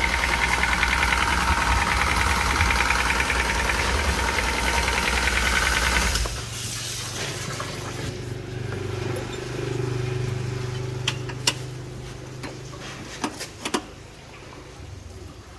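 A motor running steadily, cut off suddenly about six seconds in; then a quieter low hum and a few sharp clicks.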